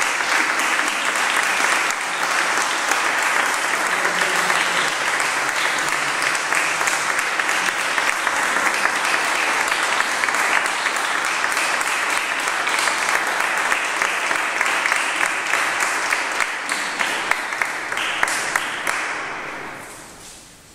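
Audience applauding, a steady wash of clapping that thins to a few separate claps and dies away near the end.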